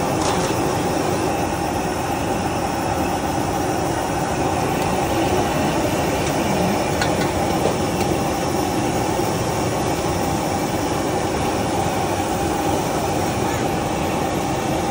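Steady rushing noise of a stir-fry kitchen: a gas wok burner and extractor fan running without a break, with a few faint clinks.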